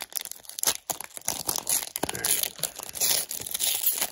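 Foil wrapper of a Panini Prizm baseball card pack crinkling and being torn open by hand: a dense run of crackles and rips.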